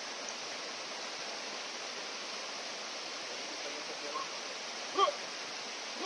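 Shallow rocky stream rushing over and around stones, a steady hiss of water. A brief shout cuts through about five seconds in.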